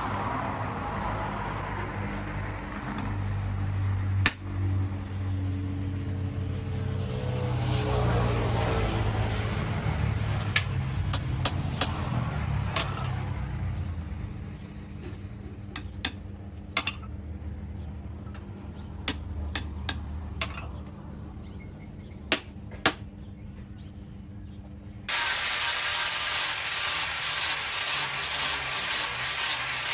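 Workshop sounds: a low rumble with scattered sharp metallic taps, then a power tool starts abruptly about 25 seconds in with a loud, steady hiss.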